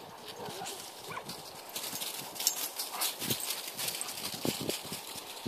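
Footsteps crunching irregularly through thin snow over frozen stubble, getting denser and louder about two seconds in.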